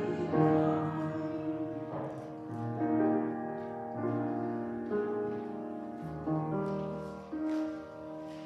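Slow, held chords on a keyboard instrument in church music, the notes changing every second or so and the sound dying away toward the end.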